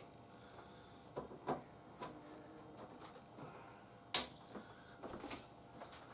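Scattered faint clicks and knocks from handling a desktop PC and its cables, with one sharp click about four seconds in.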